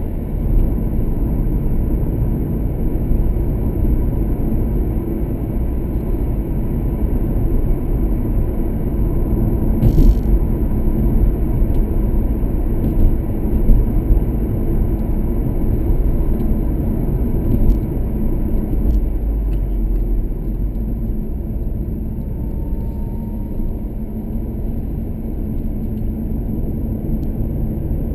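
Car cabin noise while driving: a steady low rumble of engine and tyres on the road, with a few louder bumps around the middle and a single short click about ten seconds in.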